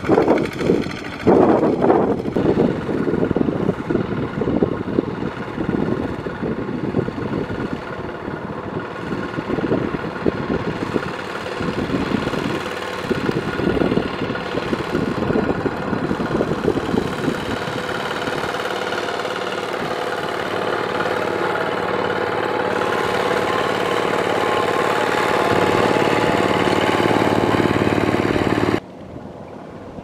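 Two-wheel walking tractors' single-cylinder diesel engines running steadily under load as they pull ploughs on cage wheels through a flooded rice paddy. The sound drops abruptly quieter about a second before the end.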